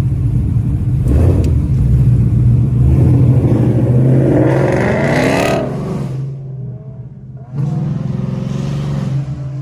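Car engine and exhaust pulling hard under acceleration, its pitch rising for a few seconds, then falling away as the throttle lifts, before coming back on.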